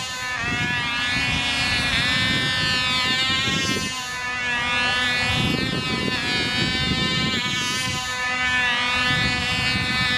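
Cox Stuka control-line model's tiny two-stroke glow engine running at full speed in flight, a high buzzing whine. Its pitch rises and falls as the model circles the pilot, repeating every couple of seconds.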